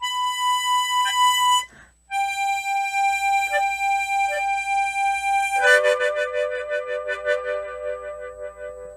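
Tremolo harmonica playing a slow melody: a held note, a brief break, a long lower note with a wavering level, then a full chord about halfway through that fades away at the end.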